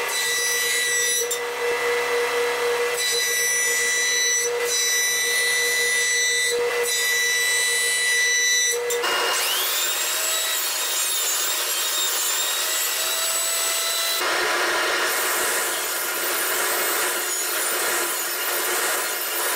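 Woodworking power tools running in turn: a jointer planing the edge of plywood stock for about nine seconds, then a benchtop thickness planer spinning up with a rising whine and running, then a table saw cutting plywood for the last few seconds.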